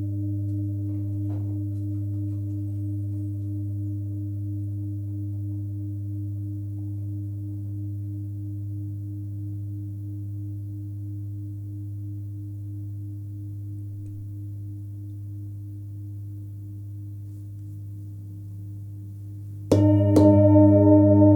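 27 cm hand-forged Full Moon singing bowl ringing out with a deep fundamental near 101 Hz (between G and G#), its higher partials pulsing slowly as the tone fades. Near the end the bowl is struck again and rings out loud and bright.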